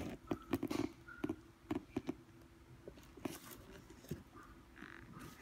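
Handling noise of a sneaker being turned and prodded by hand: scattered clicks, taps and crinkles of the paper stuffing, thickest in the first two seconds, over a faint steady hum.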